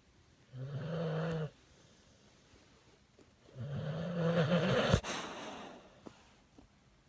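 A bully pit dog (pit bull mix) snoring in its sleep: two snores, the second longer and louder and ending in a sharp click.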